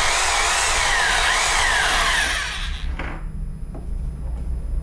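Huspanda HBD 2801 950 W corded rotary hammer drill run free in the air, its motor whine rising and falling in pitch as the trigger is squeezed and eased. It stops after about two and a half seconds, followed by a single click.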